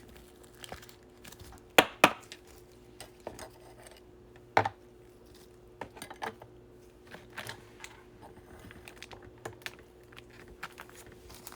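Scattered light clicks and taps of baseball cards being handled and set down on a tabletop, with two sharper knocks about two seconds in and another a little before five seconds.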